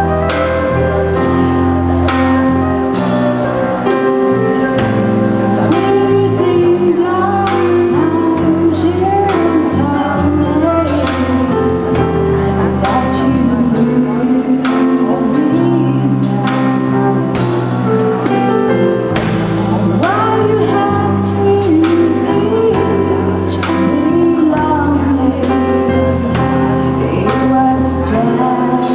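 Live pop band playing: a woman singing over electric guitars and drums, with a flute in the band.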